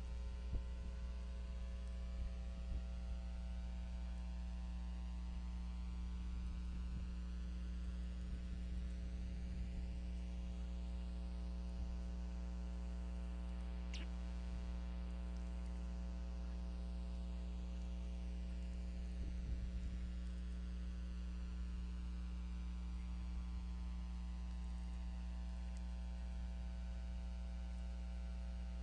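Steady electrical mains hum, a low drone with a ladder of even overtones, coming through the eagle nest camera's audio feed. A single faint click comes about halfway through.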